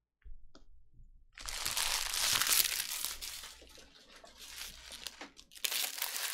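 Plastic trading-card packaging being crinkled and crumpled by hand: a loud crackling burst about a second and a half in that tapers off over a couple of seconds, then a second short burst near the end.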